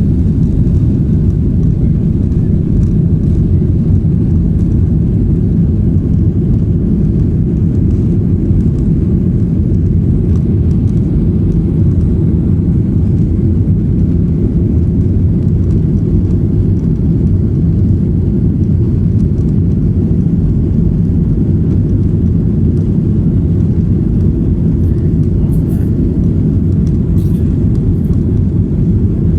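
Airliner jet engines during takeoff, a steady, loud low rumble with no change in pitch or level.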